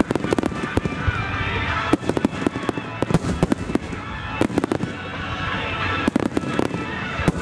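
Starmine barrage of aerial firework shells bursting, with many sharp bangs and crackling in quick volleys that cluster about every second or two. Music plays underneath.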